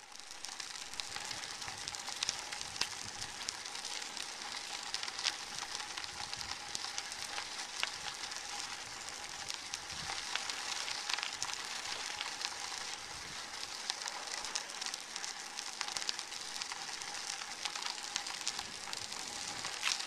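Bicycle tyres rolling steadily along a paved trail: a steady high hiss full of fine crackling, with a faint steady hum underneath.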